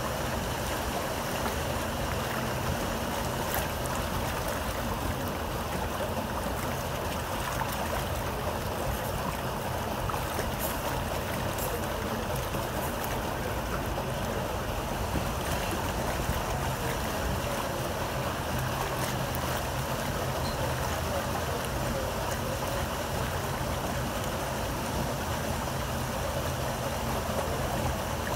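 Paddle steamer under way on the river: water rushing and churning along the hull, with a steady low hum from the boat's machinery underneath.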